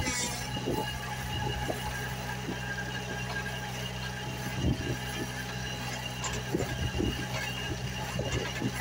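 Small well-drilling rig running: its electric motor and belt-driven gear drive humming steadily, with a few short knocks in the second half.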